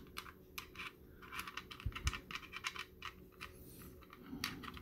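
An irregular run of small plastic clicks and taps as fingers handle and turn a figure's round plastic base, fitting a small magnetic piece onto it. There are a couple of louder knocks about two seconds in.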